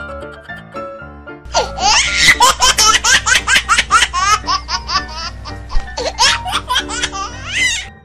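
High-pitched, rapid laughter in quick peals, starting about a second and a half in and stopping just before the end, over light background music.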